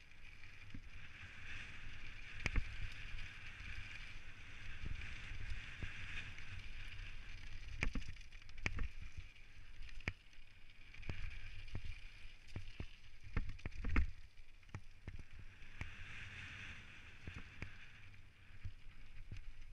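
Specialized Stumpjumper mountain bike descending fast on a gravel trail: steady tyre hiss on loose gravel, swelling and fading, with wind rumble on the microphone. Sharp knocks and rattles come as the bike hits rocks and bumps, the hardest about two and a half seconds in and again near the middle.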